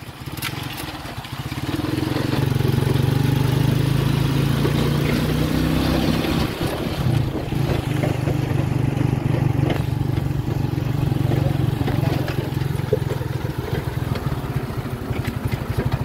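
Motorcycle engine of a tricycle running while under way. It picks up about two seconds in, then holds an even drone.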